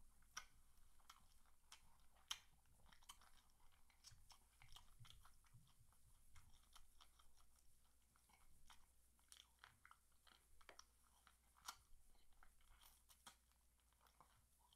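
Faint chewing and biting as a person eats a fried chicken wing, gnawing the meat off the bone, with scattered short clicks and crunches.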